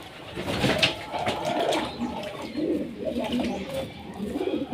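Domestic pigeons cooing in low, repeated murmurs, with a few sharp clicks about a second in.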